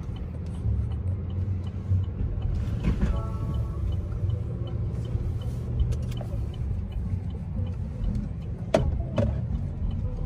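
Low rumble of an SUV's engine and road noise heard from inside the cabin as it rolls slowly. A brief pitched sound comes about three seconds in, and a sharp click near the end.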